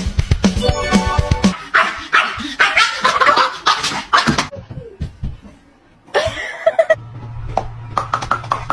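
Music with a steady beat, then a dog barking and yipping excitedly for about three seconds, as if at a squirrel outside the window. After a short lull, a steady low hum with quick even ticks runs near the end.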